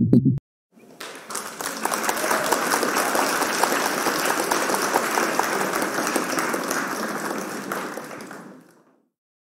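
Applause: many hands clapping. It comes in about a second in, holds steady, then fades out near the end. Electronic countdown music cuts off abruptly just before it.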